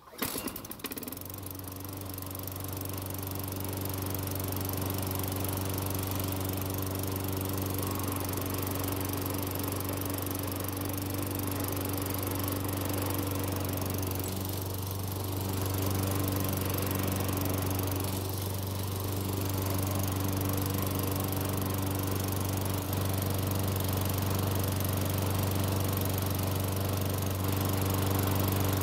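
Toro self-propelled walk-behind mower's small four-stroke engine starting on the first pull of the recoil starter, catching within about a second and settling into a steady run. It now keeps running, the sign that its primer-bulb carburetor is drawing fuel from the bowl again after the clogged main jet was cleared.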